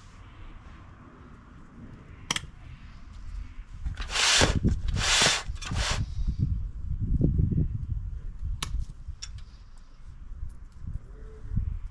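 Metal hand tool scraping and raking loose potting soil out of an azalea's root ball: two loud dry scrapes about four to six seconds in, then softer crumbling and rustling of soil. A few sharp clicks are scattered through it.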